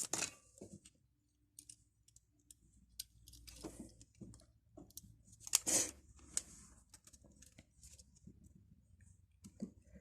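Faint clicks and scrapes of a Nokia 2730's small parts being handled and pushed into place during reassembly, with one louder scraping rustle about five and a half seconds in.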